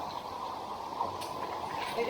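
Steady rush of a rocky river's flowing water.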